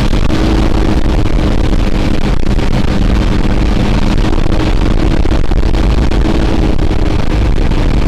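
Chevrolet D-20 pickup's four-cylinder diesel engine running steadily while driving, heard from inside the cab, with a steady road hiss under its low hum.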